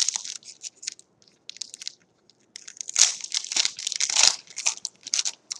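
Foil wrapper of a 2018 Panini Elite football card pack crinkling and crackling in the hands as the pack is opened and the cards worked out, loudest about three to four and a half seconds in.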